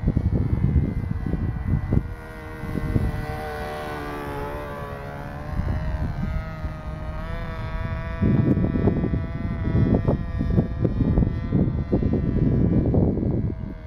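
Cox .049 glow engine of a small radio-controlled model airplane buzzing high overhead, its pitch rising and then falling back as the plane passes. Gusty wind rumbles on the microphone, heaviest in the second half.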